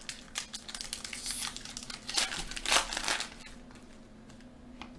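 Foil wrapper of a hockey card pack crinkling and tearing as it is opened by hand. Rapid crackles are loudest two to three seconds in and then die down.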